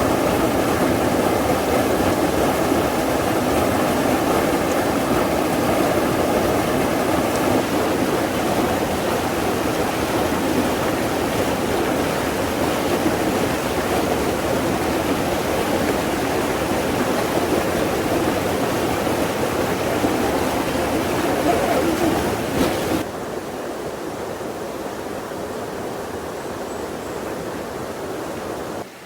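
Mountain valley stream rushing steadily over rocks, a full, even rush of water that drops to a quieter level near the end.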